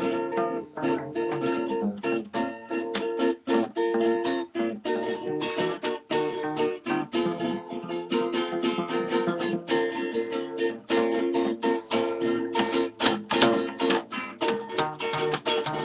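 Acoustic guitar (violão) and acoustic bass guitar playing a samba, the guitar strummed in a quick, even rhythm of chord strokes.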